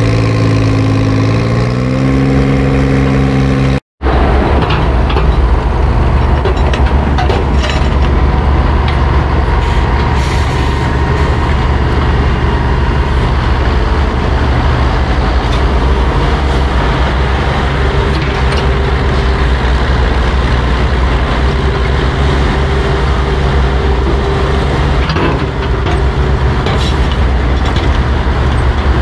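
Engines of vintage cable-operated power shovels running under load as they dig. The first engine's pitch shifts about a second and a half in, then after a short break another shovel's engine runs steadily, with a few clanks.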